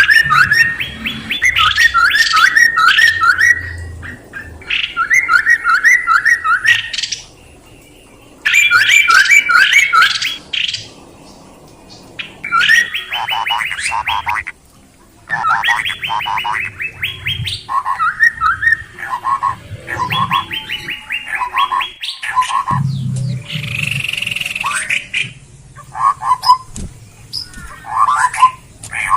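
Songbird calling in repeated phrases of rapid, evenly spaced chirping notes, each phrase lasting one to three seconds with short pauses between; from about halfway on the phrases mix in lower notes.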